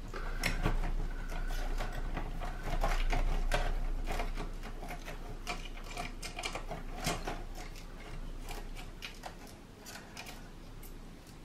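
A screwdriver working out a screw from the cassette mechanism's metal chassis: irregular small clicks, scrapes and rattles, busier in the first few seconds and thinning out towards the end.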